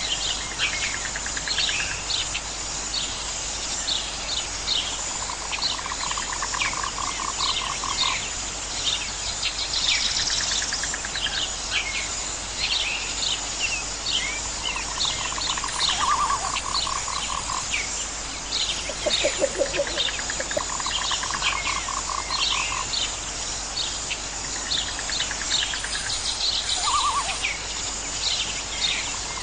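Nature soundscape of many birds chirping in short falling notes, with pulsed trills that come every few seconds and last a second or two, over a steady high insect buzz.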